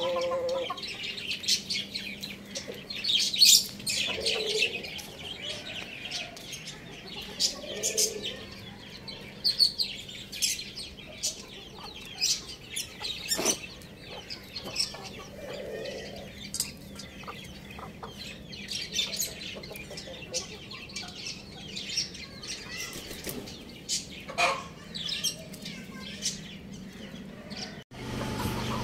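Young roosters clucking softly now and then, among many short, high bird chirps throughout.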